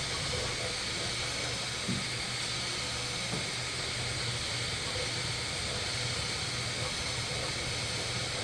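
Bambu Lab 3D printer running as it prints the first layer: a steady whir and hiss of its fans over a low hum, with a couple of faint ticks.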